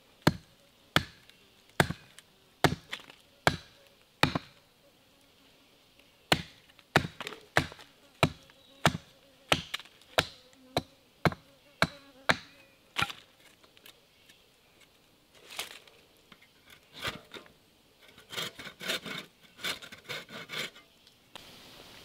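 A blade chopping into a thin green sapling stem close to the ground, one sharp woody chop a little under a second apart. After a short pause there are a few more strokes, then a quick flurry of lighter strikes near the end.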